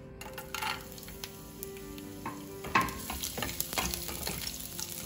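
Chopped garlic sizzling in hot oil in a nonstick frying pan, the sizzle starting a moment in as the garlic goes into the pan. A wooden spatula knocks and scrapes against the pan as it is stirred, with one sharp knock about halfway through.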